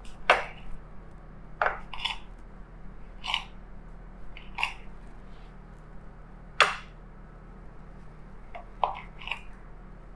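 A large knife slicing through raw beef and striking a cutting board in short, irregular strokes, about eight cuts as a piece of meat is trimmed.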